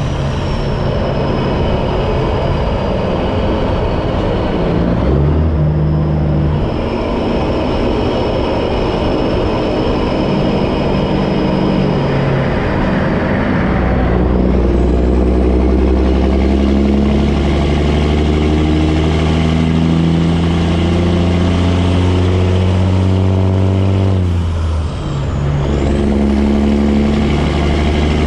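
Kenworth semi truck's turbo diesel engine pulling a loaded lowboy through the gears. The engine note climbs, breaks off briefly at a gear change about halfway through and again near the end, and picks up again, with a high turbo whistle over it.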